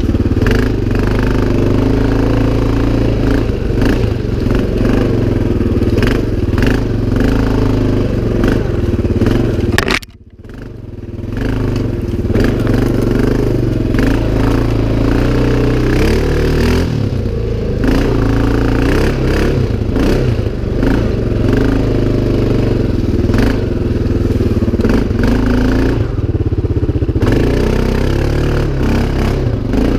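CFMoto 500 ATV's single-cylinder engine running under load off-road, with frequent knocks and rattles from the machine. The sound drops out sharply about ten seconds in and comes back within two seconds.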